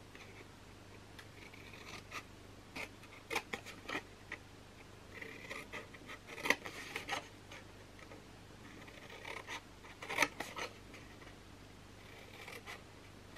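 Small craft scissors snipping short slits into paper along its fold lines: quiet, in several short runs of snips with pauses between.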